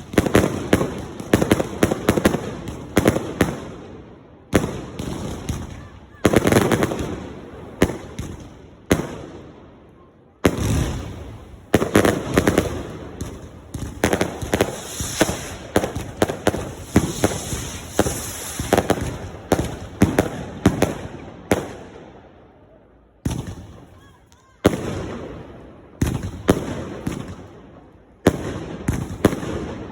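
Fireworks going off in rapid volleys of sharp bangs and crackle, each volley dying away before the next begins, with short lulls about ten seconds in and again a little after twenty seconds.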